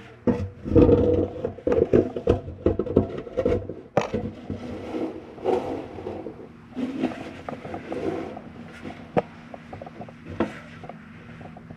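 Irregular knocking and scraping against soot-crusted masonry and rusted metal inside a fireplace flue as a camera is worked through it, busiest in the first few seconds and sparser after, with a faint steady hum underneath.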